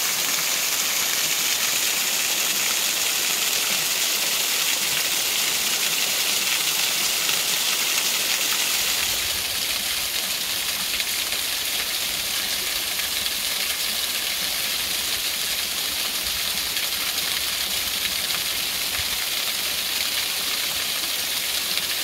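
Apple Orchard Falls, a mountain waterfall, rushing steadily and loud: a dense hiss of falling water. The sound deepens a little about nine seconds in as some low rumble comes in.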